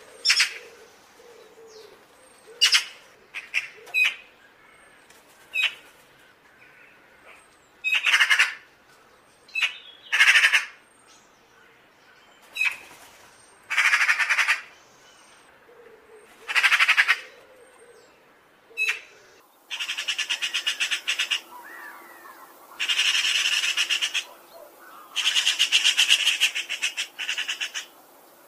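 Eurasian magpie calling: spaced single calls and second-long chattering bursts. From about twenty seconds in, long bouts of rapid rattling chatter, each made of quickly repeated notes.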